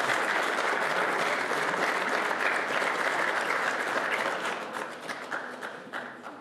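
Audience applauding, the applause dying away over the last two seconds.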